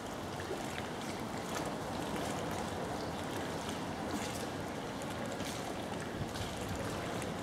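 Steady noise of a canal boat under way, with water washing past the hull.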